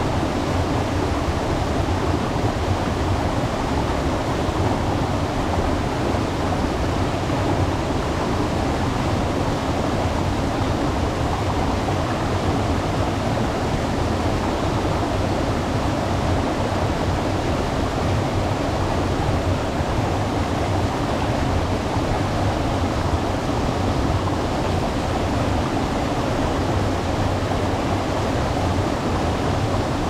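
A waterfall: water pouring and splashing in a steady, unbroken rush.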